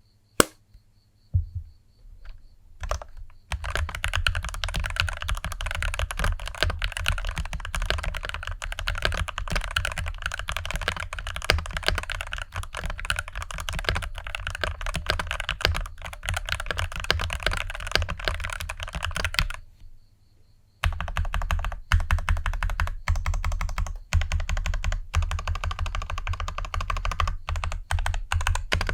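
Typing on the CIDOO ABM084, a tray-mounted TKL mechanical keyboard with a steel plate and a plastic case. A few single keystrokes come first, then steady fast typing. The typing stops for about a second roughly two-thirds of the way through, then starts again.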